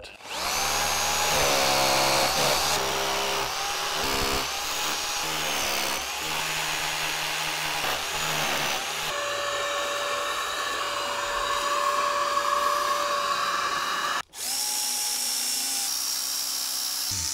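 Bosch hammer drill boring holes into a masonry wall, its motor speeding up and slowing down several times as each hole is started and finished. After a sudden break near the end, a cordless drill driver runs steadily, driving screws through a metal shelf rail into the wall.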